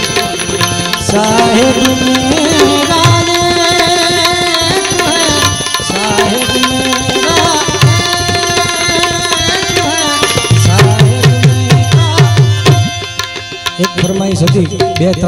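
Live Gujarati folk music: a male voice singing over harmonium with tabla accompaniment. About two-thirds of the way through comes a run of quick tabla strokes, and after it the music briefly drops in level.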